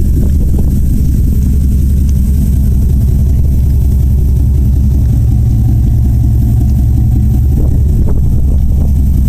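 A 2001 Dodge Ram 1500's 318 (5.2-litre) V8 idling through straight pipes, loud and steady at the exhaust tip.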